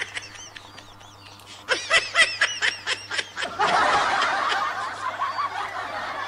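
Laughter sound effect: a run of rhythmic, evenly paced laughing about two seconds in, giving way to a denser wash of laughter from about three and a half seconds in.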